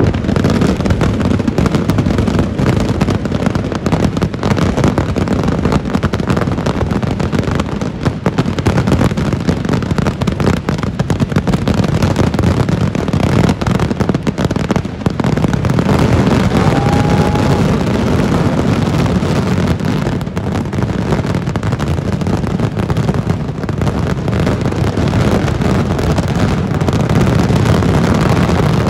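Kerala temple-festival vedikettu fireworks going off as a dense, unbroken barrage, hundreds of cracks and booms running together into one continuous rolling din.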